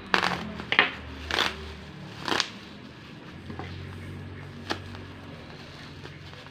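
Plastic bubble mailer crinkling in short bursts as it is handled and cut open with a knife: four crinkly rustles in the first two and a half seconds, then a single sharp click a little under five seconds in.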